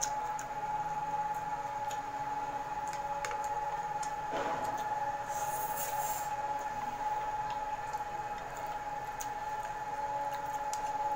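People eating pancit canton noodles with chopsticks: small clicks of chopsticks on plates, chewing, and a noodle slurp about five to six seconds in. A steady high-pitched whine runs underneath.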